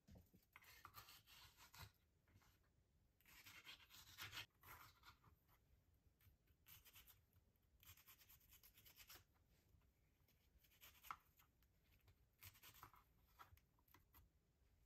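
Faint kitchen-knife strokes on a cutting board: short bursts of slicing and scraping with quiet gaps between them.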